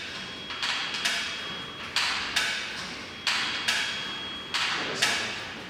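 Rhythmic knocks coming in pairs, about one pair every second and a half, each knock ringing briefly.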